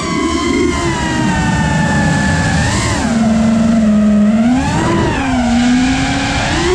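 Five-inch FPV quadcopter's brushless motors (Flywoo 2306, 2450 kV, on 5S) whining through the props over a rush of wind noise. The pitch sags slowly at first, then swings sharply up and back down with throttle punches about three seconds in, near five seconds and at the end.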